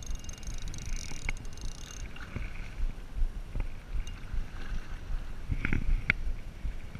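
Wind buffeting the microphone over a steady rumble of open water around a drifting boat. A spinning reel being cranked gives a high whirr in the first two seconds, and there are a few sharp clicks near the end.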